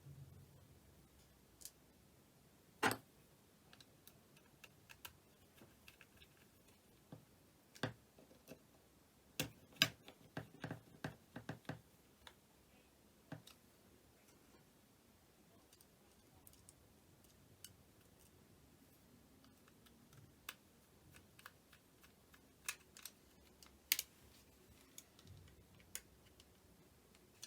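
Faint, scattered small clicks and taps of a small screwdriver and tiny screws being driven back into a plastic phone housing, with a quick run of clicks about ten seconds in.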